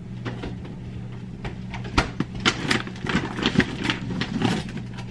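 Grocery packaging being handled: a quick run of clicks, crinkles and light knocks of plastic containers and wrappers being picked up and set down, over a steady low hum.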